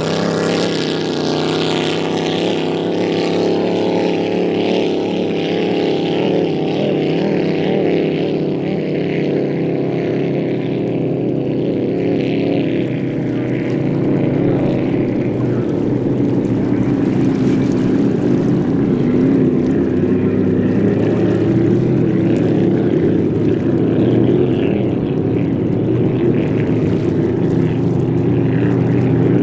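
Pro-Lite inboard racing hydroplanes running at speed, a steady engine drone whose pitch wavers slightly and then settles, getting a little louder in the second half.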